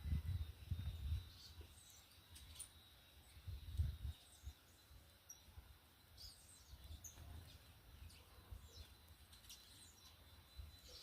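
Small birds chirping faintly, with short, scattered calls, over low rumbles near the start and again about four seconds in, and a faint steady high tone.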